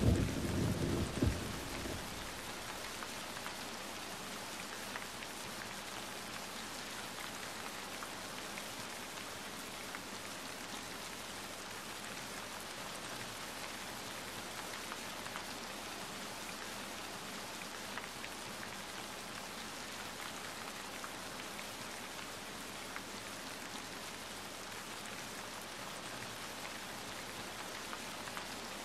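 Steady rain from a nature-sounds recording: an even hiss of falling rain with scattered drop ticks. The tail of a thunder rumble dies away about a second and a half in.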